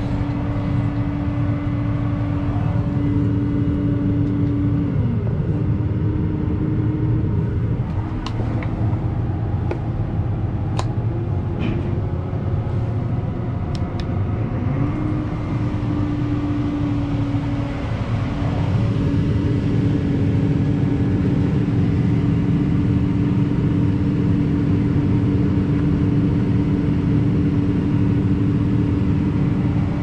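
Diesel engine of farm machinery running steadily, its whine sagging in pitch twice as if under load and then recovering, with a few sharp clicks in the middle.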